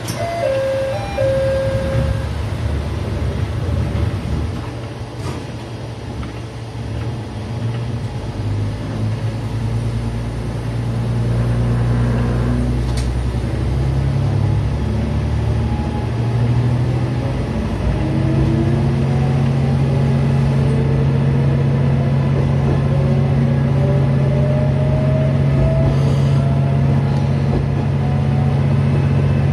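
Diesel railcar's engine idling at the station, then throttling up as the train pulls away, its note growing louder from about halfway through, with a rising whine as it gathers speed. A short beep sounds right at the start.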